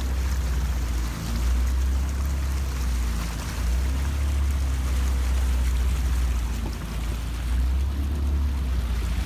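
A motorboat's engine running steadily under way, with water rushing past the hull. A heavy low rumble swells and dips throughout.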